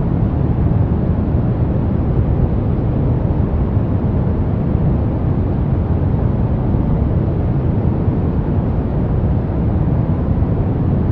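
Soft brown noise: a steady, even rumbling hiss, strongest in the low end and falling away toward the highs, with no change throughout.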